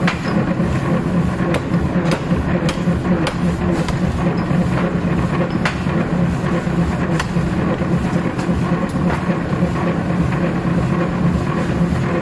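Steady low machine hum, with sharp metal knocks at irregular intervals from hand tools striking the white-hot steel bearing-ring blank on the anvil during forging.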